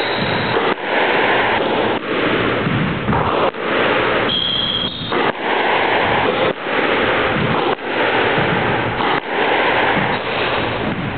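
A squash rally: the ball struck by racket and against the court walls about once a second, each hit loud and ringing on in the court's echo. A brief high squeak a little over four seconds in.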